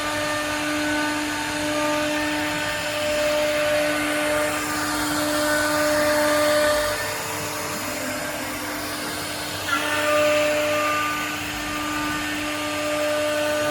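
CNC wood router running: a steady high spindle whine over the hiss of cutting and air, with a short lull in the whine and a sharp click just under ten seconds in.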